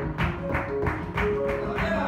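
Live flamenco seguiriya: flamenco guitar playing under sharp, rhythmic palmas (hand clapping) and the dancer's percussive footwork, at about four strikes a second.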